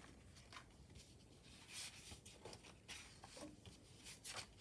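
Faint rustling and brushing of paper as journal pages are turned and slid into place by hand, a few soft strokes scattered over otherwise near silence.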